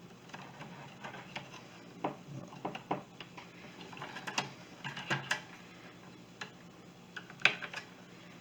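Scattered clicks and knocks of a miter saw's blade-guard assembly being worked loose and slid up by hand, with a sharper knock near the end.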